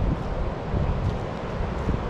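Wind buffeting the microphone in uneven gusts, over a steady rush of river water pouring over a weir.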